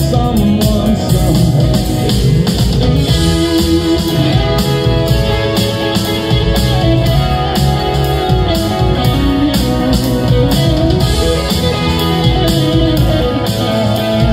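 Live rock band: a Strat-style electric guitar plays a lead solo with bent, gliding notes through the Marshall Plexi amp model of a Line 6 HX Stomp, over drums and keyboard.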